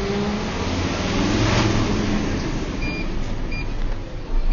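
Fire tanker truck's engine running and picking up speed, rising in pitch over the first second and a half, heard inside the cab. Two short high electronic beeps sound near the end.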